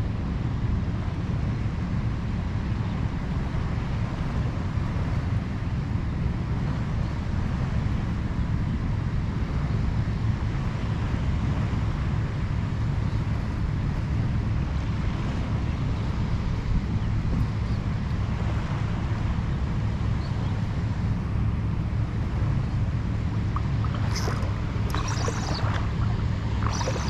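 Steady low rumble of wind buffeting the camera microphone, over the light wash of shallow surf water. A few brief clicks and rustles come near the end.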